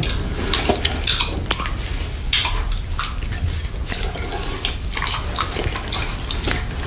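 Close-miked wet mouth sounds of eating whipped cream from a plastic cup: licking and slurping with a quick, irregular run of wet clicks and smacks.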